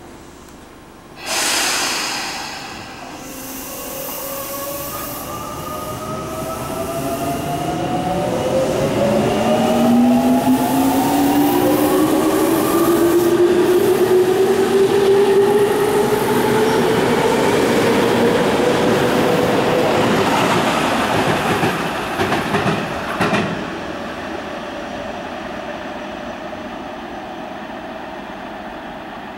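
Electric commuter train pulling out of the platform: a sudden burst of air hiss about a second in as the brakes release, then the traction motors' whine climbing steadily in pitch as it accelerates over the rails. A few clacks from the wheels over rail joints come near the end, and then the sound fades as the train draws away.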